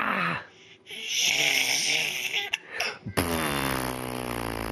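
Silly mouth noises traded between a baby and an adult, such as blown raspberries: a breathy sputtering stretch, then, about three seconds in, a long buzzing sound that slides slowly down in pitch for nearly two seconds.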